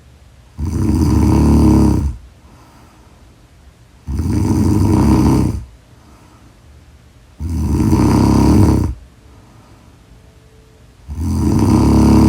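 Loud snoring in a steady rhythm: four long snores, each about a second and a half, coming about every three and a half seconds, with quiet breathing in between.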